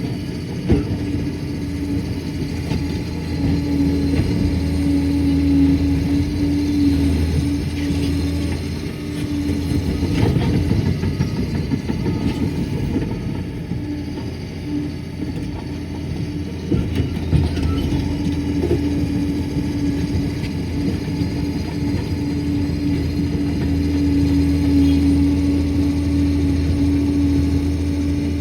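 Liebherr PR 746 crawler dozer's diesel engine running steadily with a constant hum, its steel tracks clanking, and a few sharp knocks throughout.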